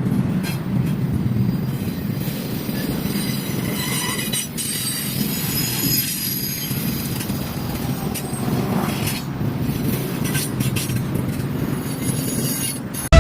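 Train rolling past, steel wheels squealing on the rails with thin high tones through the middle, over a steady rumble of wheels and cars.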